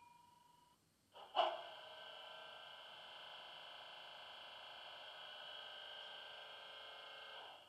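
Class 20 diesel locomotive sound from a model locomotive's DCC sound decoder, played through a small tablet speaker. A fading tone dies away at the start, then a click about a second and a half in starts a steady hum of several held tones, which cuts off just before the end.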